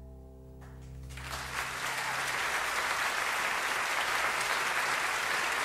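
Audience applause breaks out about a second in and swells into steady clapping, while the last held low notes of the band's accompaniment die away beneath it.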